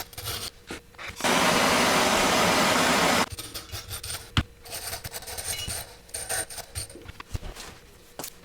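Bench work on small metal carburettor parts: a steady hiss lasting about two seconds near the start, with scattered clicks and taps of metal being handled before and after it.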